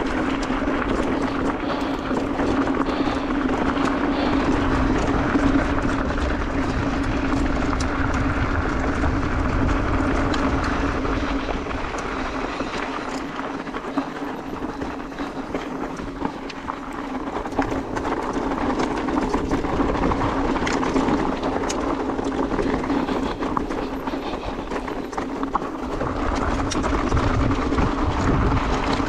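E-mountain bike tyres rolling down a loose gravel and rocky trail, the bike rattling over stones in many small clicks, with a steady low hum underneath.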